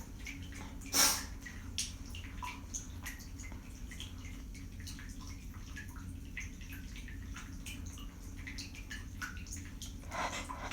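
Running water in a bathroom, with irregular small drips and splashes over a steady low rush. A brief louder burst comes about a second in.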